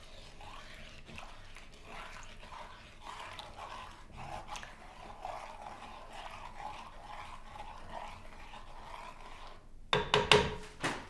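Wooden spoon stirring a beer-and-sherry mixture in a ceramic mixing bowl: soft, steady swishing and scraping of liquid against the bowl, with a few louder knocks near the end.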